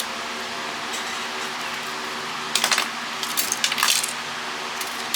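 Clicks and rattles of a cordless phone's plastic housing and parts being handled and pried apart, in two short clusters about halfway through, over a steady fan-like hum.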